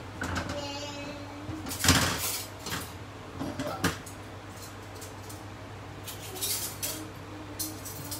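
Dinner plates being handled and set down on a kitchen counter: scattered knocks and clinks, the loudest about two seconds in, over a steady low hum.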